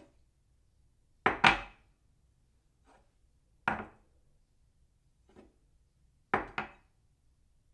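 Ceramic cup being set down on its saucer again and again: sharp clinks every second or two, some as quick double knocks, a few faint.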